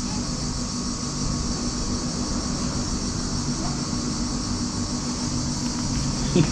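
Steady low machine hum with a constant high hiss over it, unchanging throughout; a brief louder sound right at the end.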